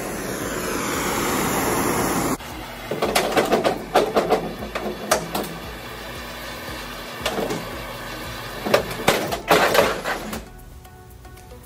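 Bernzomatic gas hand torch hissing for about two and a half seconds while heating the aluminum bedside to soften the panel-bond adhesive, then cutting off. After that comes a run of sharp knocks and clicks over background music.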